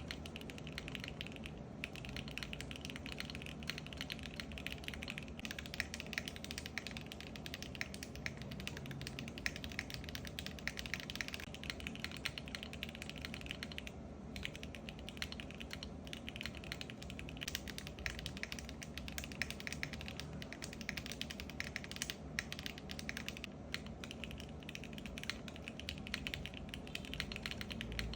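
Fast, continuous typing on a 65% mechanical keyboard: a dense stream of key clicks and clacks, with brief pauses about 2 seconds and 14 seconds in.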